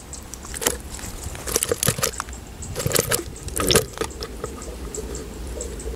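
Freshly caught fish flopping in a plastic bucket with a little water: an irregular run of wet slaps and splashes.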